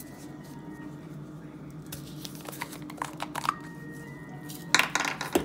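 Clicking and crinkling of a brand-new Weber seasoning shaker being opened by hand, its plastic cap and seal worked in a few short spells, loudest near the end, over a steady low hum.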